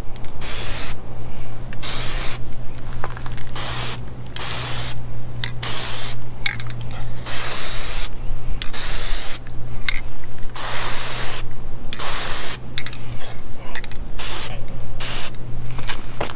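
Aerosol can of high-heat spray paint sprayed on a bench vise in a long run of short hissing bursts, over a dozen, each under about two seconds.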